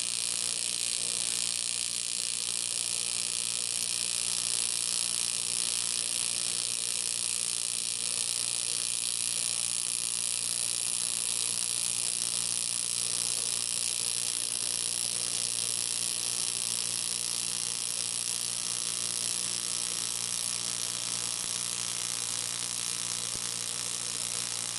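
TIG welding arc on aluminium sheet, running steadily as an AC arc buzz with a hiss over it.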